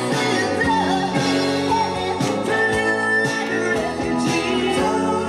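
A rock song with singing, played back from a vinyl LP on a Technics MCS 6710 belt-drive record changer.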